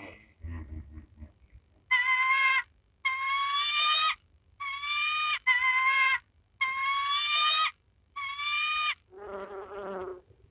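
An animal's high-pitched calls, six in a row, each about a second long with a steady, slightly rising pitch, followed near the end by a lower, buzzier call.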